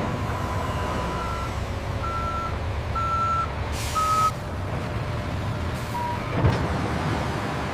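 Heavy machine's diesel engine running steadily with its reversing alarm beeping about once a second, a short hiss around four seconds in, and a single thump near the end.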